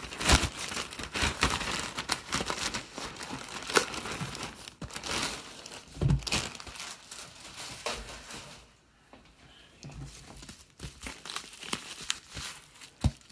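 A large clear plastic bag and bubble wrap crinkling and rustling as they are handled, in irregular crackles that pause briefly around nine seconds in.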